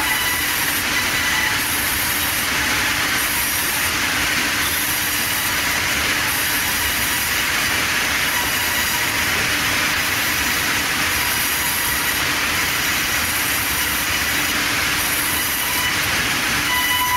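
Large vertical band saw running and ripping a wooden slab: a loud, steady, high-pitched whine and hiss of blade through timber, with a faint shimmer that pulses about every second and a half.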